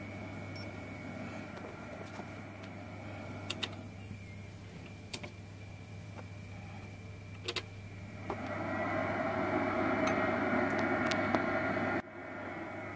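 Bench test equipment running: a steady low mains hum with fan hiss, a few sharp clicks of switches or buttons, and from about eight seconds in a louder steady noise that cuts off abruptly near the end.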